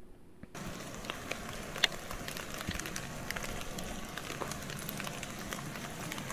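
Steady outdoor hiss with many small scattered crackles and ticks, starting suddenly about half a second in.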